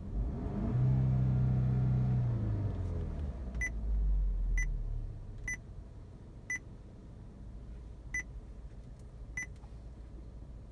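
Car head unit's touchscreen beeping at each tap, six short beeps from about three and a half seconds in, roughly one a second. Underneath, a low car rumble with a hum is loudest in the first half and fades about five seconds in.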